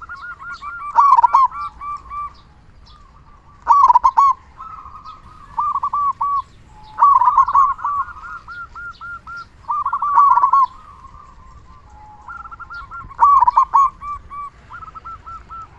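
Zebra dove (perkutut) cooing: repeated phrases of quick, staccato coos, with a loud phrase about every three seconds and fainter cooing phrases between.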